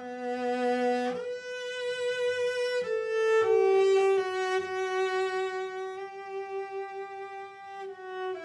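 Cello playing a slow, smoothly bowed melody of long held notes, each lasting one to four seconds.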